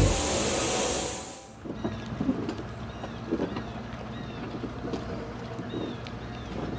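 Gravity-feed paint spray gun hissing as it sprays, cutting off about a second and a half in. After that, quieter outdoor air noise with faint short, high chirps repeating every second or so.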